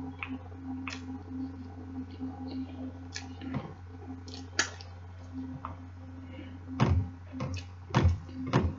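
Scattered light clicks and knocks of things being handled on a table, irregularly spaced about a second apart and getting a little heavier near the end, over a steady low hum.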